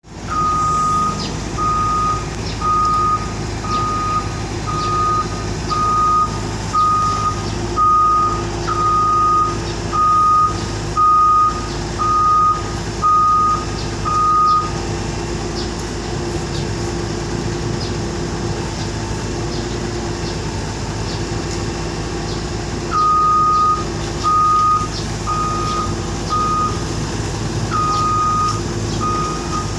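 Wheeled backhoe loader's diesel engine running steadily, with its reverse alarm beeping about once a second. The beeping stops about halfway through, leaving the engine alone for roughly eight seconds, then starts again.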